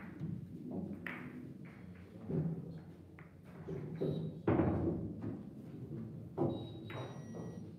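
Boccette balls knocking against each other and the cushions of a billiard table: a string of dull knocks, each with a short ringing tail, the loudest about four and a half seconds in.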